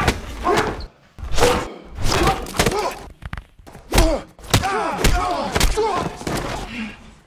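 Hand-to-hand fight: a rapid series of hits and thuds, with grunts and cries of effort between the blows.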